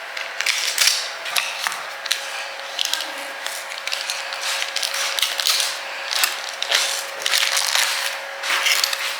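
A utensil scraping and clicking against a bowl in quick, irregular strokes as a cream cheese stuffing is stirred together.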